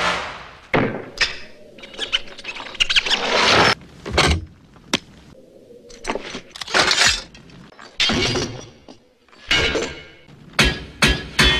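A rapid string of metal clanks, crashes and clatters, as armour and iron hardware are knocked about and handled. Some hits trail off in a scraping clatter, and near the end several ring.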